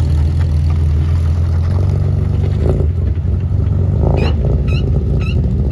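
Car engine running loud and steady, with three short high chirps about half a second apart near the end.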